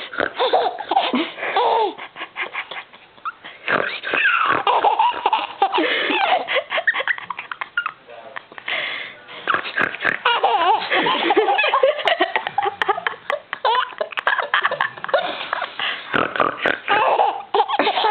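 A person laughing hard in long runs of rapid bursts, pausing briefly a few times.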